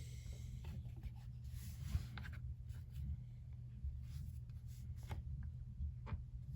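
Light handling clicks and short scrapes of small metal parts as an MK18's bolt carrier group is taken apart by hand, over a steady low hum.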